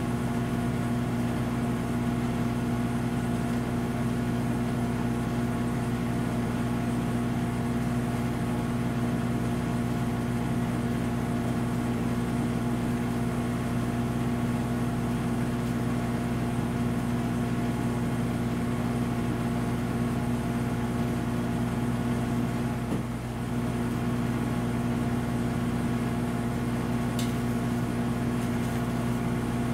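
Steady low machine hum made of several fixed tones, unchanging throughout, with a faint click near the end.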